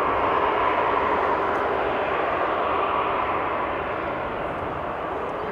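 Airbus A350-941's Rolls-Royce Trent XWB jet engines running at taxi power: a steady jet rush that eases off a little over the last couple of seconds.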